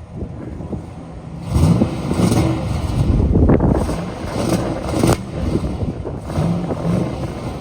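Ram 1500's Hemi V8 revving hard from about a second and a half in as the truck churns through a mud hole, with several sharp bursts of splattering and clatter; it eases back after about five seconds.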